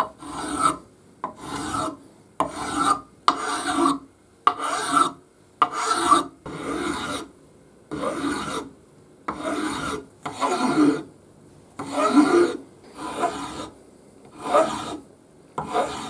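A flat blunt-ended hand file rasping across the face of an aluminium block in repeated separate strokes, about one a second, to remove scratches from the surface.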